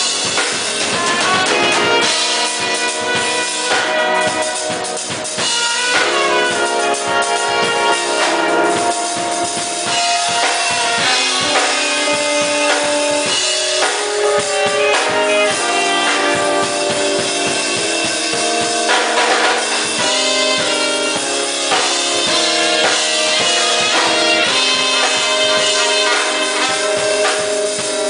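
Music with a full drum kit (bass drum, snare and rimshots) under sustained pitched instruments, which may include horns.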